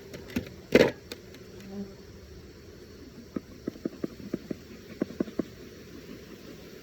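Honeybees buzzing in and around an opened hive as a steady hum. A loud thump comes just under a second in, and a run of about a dozen short sharp clicks or taps follows between about three and five seconds in.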